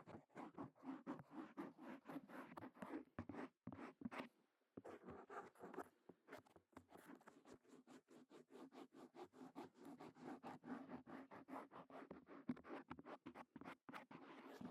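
Rapid, close scratching and rubbing on the ear of a KU100 dummy-head microphone, as in ear-cleaning ASMR: many quick strokes a second, pausing briefly about four seconds in.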